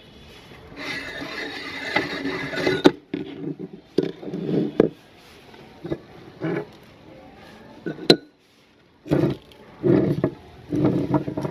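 Meat grinder crushing crunchy corn chips, crackling and crunching in uneven bursts with sharp cracks and short pauses between.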